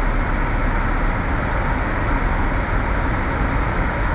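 Steady car driving noise heard from inside the cabin: engine and tyre rumble, even and unbroken.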